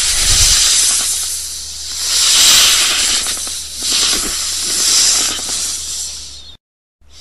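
Snake hissing: long breathy hisses that swell and ease several times, then cut off abruptly near the end.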